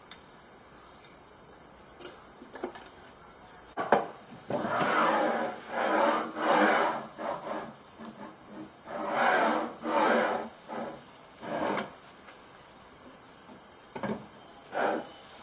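Rasping strokes of a hand tool working a part, in two runs of several strokes each with pauses between, and two more single strokes near the end.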